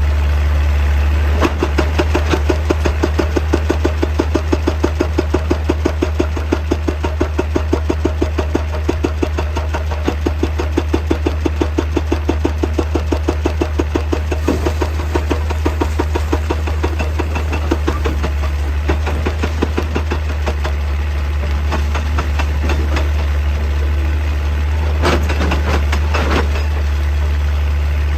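Heavy excavator's diesel engine running with a steady low drone and a rapid, even knocking laid over it. The knocking fades out a little past halfway, and a few louder single knocks come near the end.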